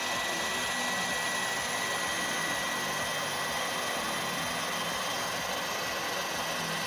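Heat gun running steadily: a continuous rush of blown air with a thin, steady high whine, heating the headlamp's plastic and glue to soften it.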